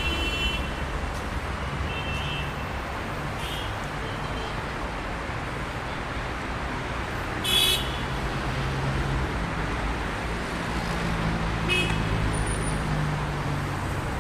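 Traffic jam: a steady hum of road traffic and running engines, with short car-horn toots several times. The loudest toot comes about halfway through.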